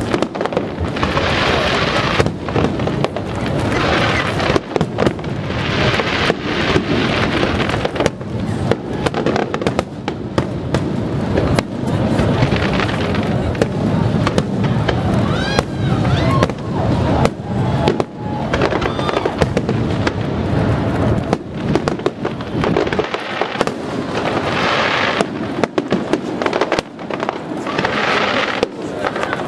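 Zambelli professional aerial fireworks display: shells launching and bursting in a dense, continuous barrage of bangs, with several short spells of hissing crackle.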